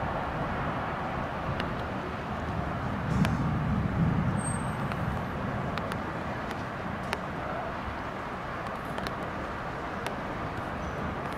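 Steady hum of distant city traffic, with a deeper swell about three seconds in that fades again a second or so later, and a few faint clicks.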